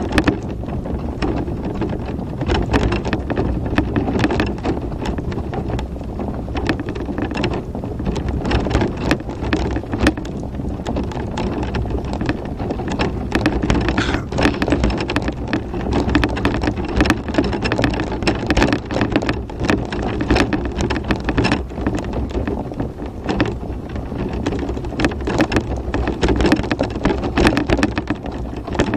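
Tramper electric off-road mobility scooter driving over a rutted chalk track: a continuous rumble of tyres and drive, with many small knocks and rattles as the scooter jolts over the ruts.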